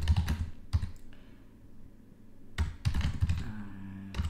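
Typing on a computer keyboard: a quick run of keystrokes at the start, a pause, then a second run about two and a half seconds in.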